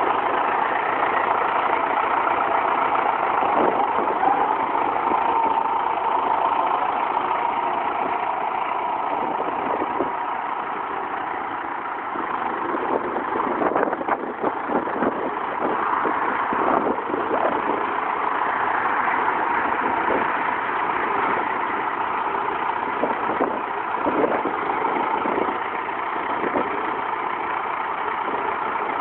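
John Deere tractor's diesel engine running steadily as the tractor drives and carries a bale on its front loader. Irregular knocks and clatter come in over the second half.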